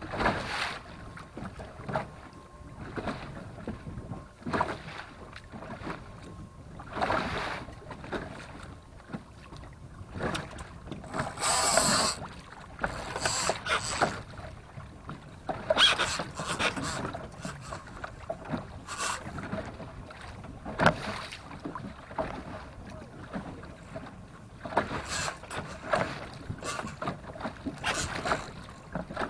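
Wind buffeting the microphone and water slapping against a small boat's hull in irregular gusts, with one louder rush of noise about twelve seconds in.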